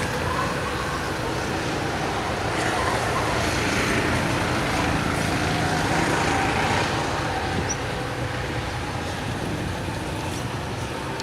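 Ford Mustang V8 engine running through its aftermarket exhaust, swelling louder for a few seconds mid-way and then settling back.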